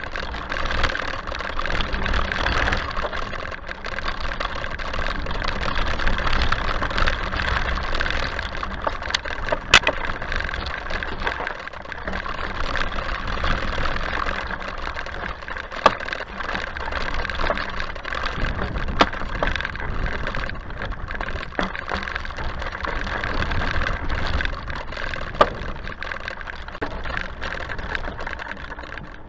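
Rear-suspended handbike ridden over a rough dirt and grass track, heard from a camera on its frame: a continuous rumble and rattle of tyres and frame that swells and dips with the terrain, broken by four sharp knocks.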